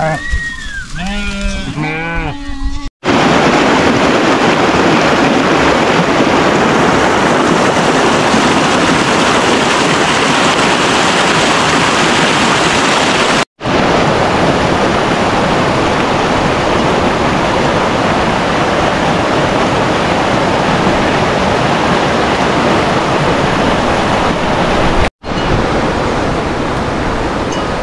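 A flock of sheep bleating several times, then, after an abrupt cut, the loud, steady rush of a mountain stream running over rocks, broken by two brief gaps and softer after the second one.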